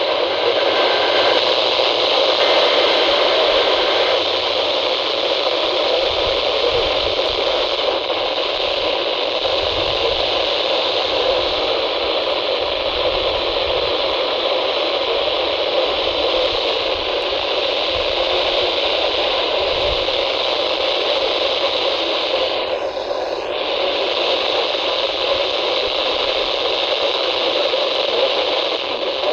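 Steady radio static hiss from a weather-band radio receiver tuned to a channel with no broadcast coming through.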